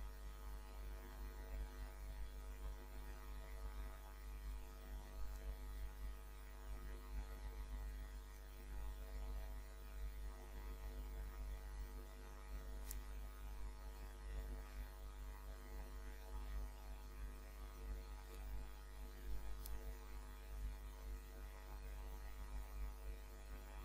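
Faint, steady electrical hum with many evenly spaced overtones, the mains hum of the recording setup, with a couple of faint ticks around the middle.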